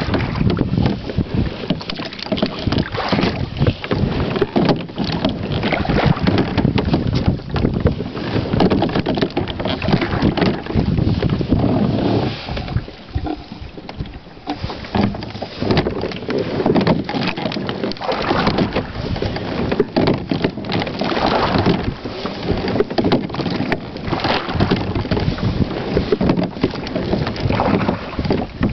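Whitehall Spirit Solo 14 sliding-seat rowing boat under way: water swishing and splashing at the hull and carbon-fibre oar blades, with sharp clicks and knocks from the oars working in their oarlocks and wind buffeting the microphone. The sound surges unevenly and eases for a couple of seconds about twelve seconds in.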